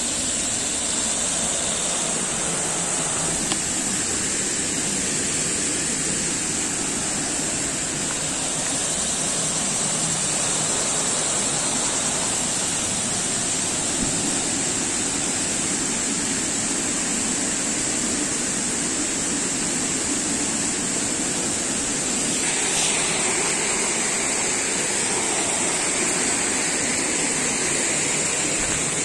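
Steady rushing of water in a rocky creek, an unbroken hiss that brightens slightly near the end.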